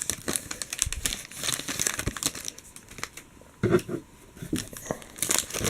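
Foil trading card pack wrapper crinkling and tearing as the pack is opened by hand, with quick crackles and the shuffle of cards being handled.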